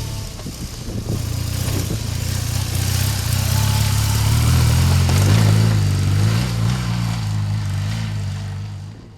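BMW R1200GS motorcycle's boxer-twin engine running under way with wind rush. The engine note climbs and grows louder to a peak about halfway through, then eases off and fades near the end.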